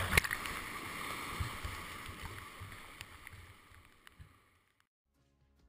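Rushing flood whitewater splashing close against the kayak and the boat-mounted camera, with a few sharp splashes at the start. The sound fades away steadily and is gone about five seconds in.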